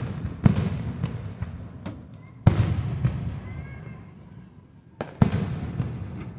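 Aerial fireworks shells bursting: sharp bangs about half a second in, about two and a half seconds in, and twice close together near five seconds, each followed by a low rolling rumble that fades away.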